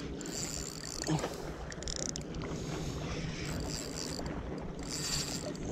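Shimano TwinPower 4000XG SW spinning reel being cranked on the retrieve, its high whir coming in several short bursts, over a steady hiss of wind and sea.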